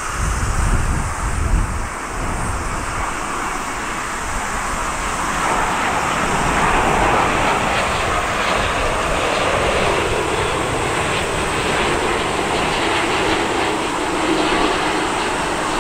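Jet engines of a Boeing 787-8 Dreamliner on its landing approach: a broad, steady roar that grows louder from about five seconds in as the airliner draws near, with a lower part of the sound sinking slowly in pitch near the end.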